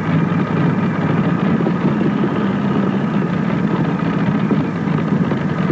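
Single alcohol-injected Allison V12 aircraft engine of a modified pulling tractor idling steadily with a low, even rumble.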